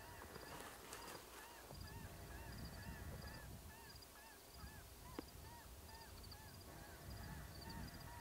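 Electronic predator call playing an evenly repeated series of short rising-and-falling wailing notes, about two a second, as a lure for coyotes. A single sharp click about five seconds in.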